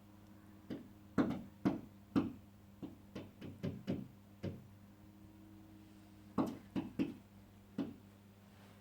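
A bird's bill knocking hard against a mirror as it attacks its own reflection: a run of about ten sharp, uneven raps, a pause of about two seconds, then four more.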